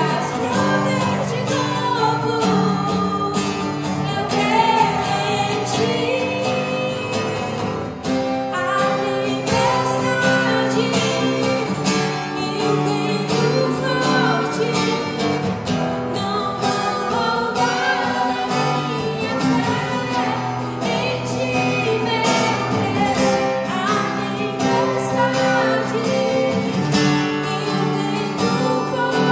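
Gospel worship song: singing with instrumental accompaniment, held sung notes over a sustained backing at an even level.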